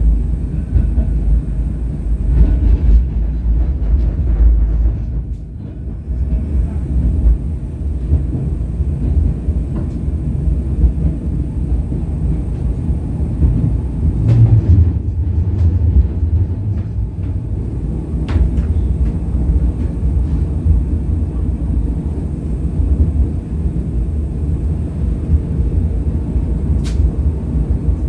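English Electric Millennium Car tram running along the track, heard from inside the car: a steady low rumble of wheels and running gear, with a stronger low hum around the middle and a few sharp clicks or rattles.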